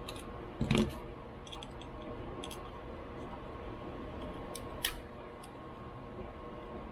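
A few light metal clicks and clinks from a screwdriver working small screws and parts loose on a Motorcraft 2150 carburetor, over a faint steady hum.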